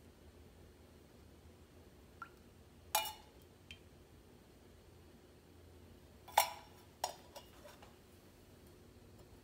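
Metal kitchenware clinking against a wok: two ringing metal knocks, about three seconds and six and a half seconds in, followed by a few lighter clicks, as a spoon and a steel oil pourer touch the pan and are set down.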